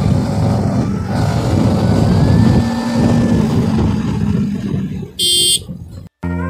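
Motorcycle running along a road with wind rushing over the microphone. About five seconds in a short high-pitched electronic chirp sounds, the audio cuts to silence, and acoustic guitar music begins at the very end.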